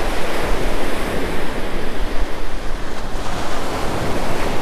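Ocean surf breaking and washing up the beach, a steady rush that swells and eases, with wind rumbling on the microphone.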